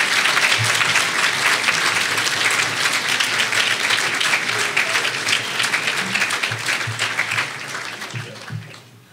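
Audience applauding, dense clapping that thins and dies away in the last second or two.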